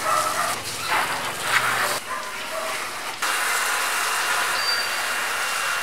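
Water from a pressure-washer spray wand hissing against a soapy car body as the suds are rinsed off. The spray sound changes abruptly about two and three seconds in.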